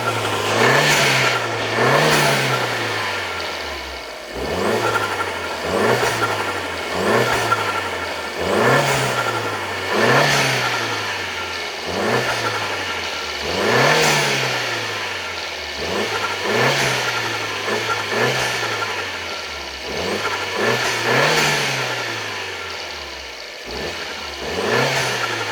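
Alfa Romeo MiTo QV's 1.4 turbocharged four-cylinder engine, on stock intake and air filter, revved in short repeated blips about every second and a half. Each blip rises and falls in pitch, with a rush of intake and turbo noise at each peak.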